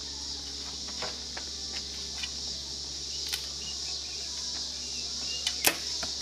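Steady high-pitched chorus of insects, with a few faint clicks and one sharp click about five and a half seconds in.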